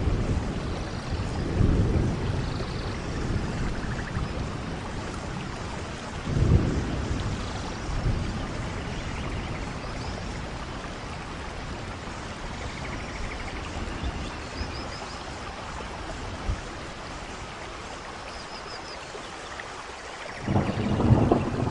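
Steady heavy rain hissing in a rainforest, with thunder rumbling low several times: about two seconds in, around six seconds in, and loudest near the end. A few faint high chirps sound in the middle.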